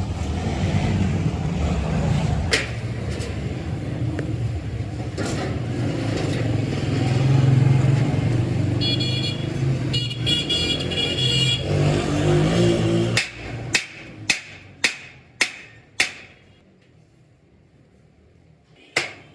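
A steady engine-like rumble, with a high tone sounding twice, stops about 13 seconds in. Five sharp knocks follow about half a second apart, then one more knock near the end.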